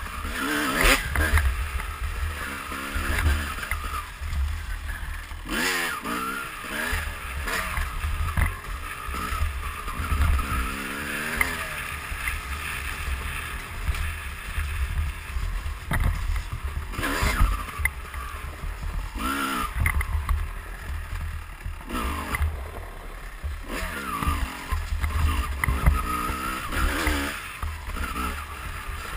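2004 Kawasaki KX250 single-cylinder two-stroke dirt bike engine revving up and down again and again while being ridden along a trail. Heavy wind rumble on the helmet microphone and occasional knocks run through it.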